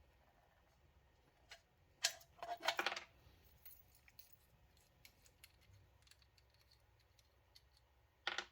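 Small metal caster hardware being handled: a sharp clink about two seconds in, a rattling clatter over the next second, and another short clatter near the end, with faint ticks between.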